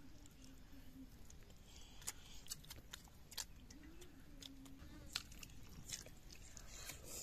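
Close-up eating of masala fish by hand: quiet biting and chewing, with several sharp wet mouth clicks and crunches scattered irregularly.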